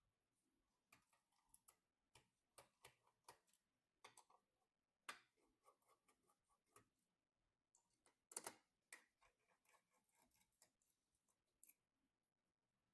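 Faint, irregular clicks and taps of computer parts being handled and fitted together during a PC build, with the sharpest knocks a little after five seconds and around eight and a half seconds in.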